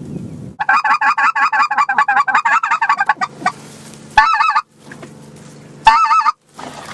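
Loud goose-style honking: a fast run of about eight wavering honks a second lasting nearly three seconds, then two single short honks about four and six seconds in.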